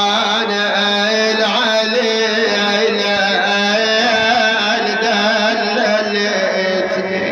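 Male reciter's voice singing one long wordless note in a mournful Shia lament, steady at the bottom with a wavering, ornamented line above.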